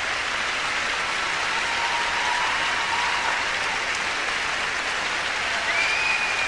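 Large audience applauding steadily, an even wash of clapping with a thin high tone rising and holding near the end.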